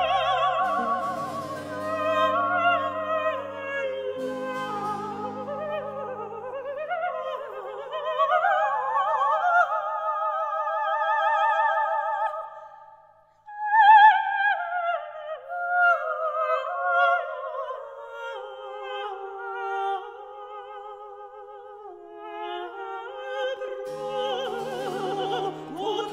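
High operatic voice singing an Italian aria with wide vibrato, over orchestral accompaniment. The orchestra drops away and the voice sings alone, breaks off briefly, then comes back loud on a high note that falls away. The accompaniment returns near the end.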